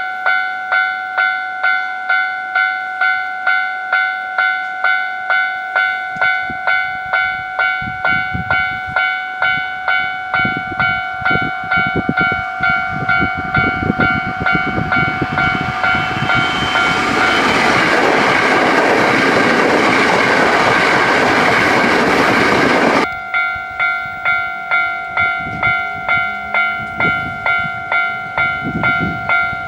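Railway level-crossing warning bell clanging steadily, about two strikes a second. Train wheels clatter in as a train comes through, and its loud passing rush drowns the bell for several seconds. The rush cuts off abruptly about three-quarters of the way in, leaving the bell ringing on.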